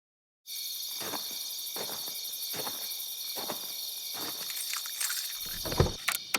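Steady high-pitched chirring like insects at night, with soft ticks a little under once a second, starting after a brief silence; a few low thumps come near the end.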